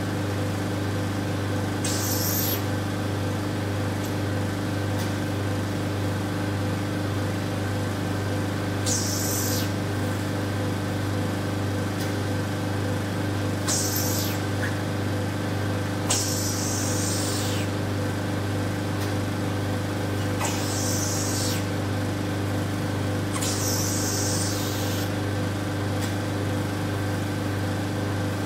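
Vacuum RF roller body-contouring machine running with a steady hum from its vacuum pump. Short hisses of air come from the handle every few seconds, about six times, as the vacuum pulses and releases while the roller works the skin.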